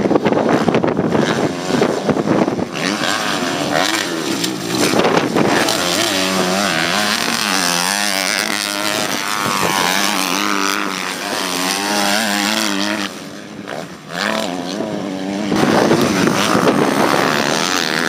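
Motocross bike engines revving hard as riders race past, the pitch climbing and falling repeatedly with throttle and gear changes; the sound dips briefly about 13 seconds in, then comes back loud.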